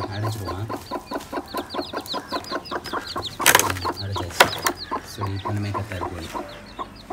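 Newly hatched chicks peeping rapidly in short falling chirps under a broody hen, with low clucks from the hen. About three and a half seconds in, a woven bamboo basket is set down over the nest with a rustle and a knock, and the peeping thins out near the end.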